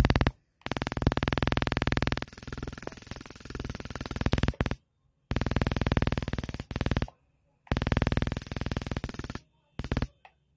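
RYLAN rechargeable electric mosquito racket's high-voltage mesh crackling and zapping as a mosquito is electrocuted on the grid. It comes as about five loud bursts of rapid crackle, from a fraction of a second to about four seconds long, each cutting off sharply.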